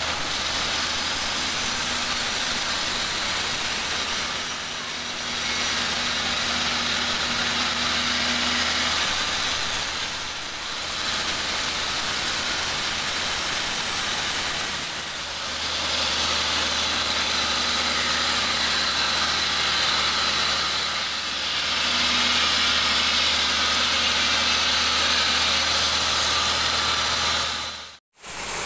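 Sawmill band saw (36-inch) running and cutting lengthwise through a large mahogany log: a steady motor hum under a loud hiss of the blade in the wood. The sound eases briefly several times and cuts out for a moment near the end.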